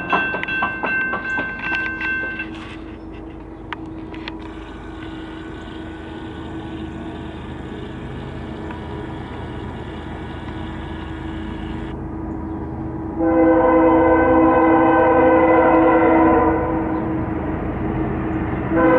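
A grade-crossing warning bell rings for the first couple of seconds. Then the diesel rumble of an approaching CSX freight slowly builds, and the lead locomotive, a GE ES44DC, sounds its multi-chime air horn in one long blast about three seconds long from about two-thirds of the way in. A second blast starts right at the end, the horn signal for the grade crossing.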